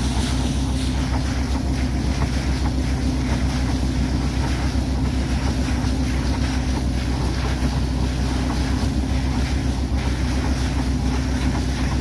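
A borewell drilling rig's engine running steadily, with water gushing out of the freshly drilled borehole and splashing hard onto the ground and into a muddy pool.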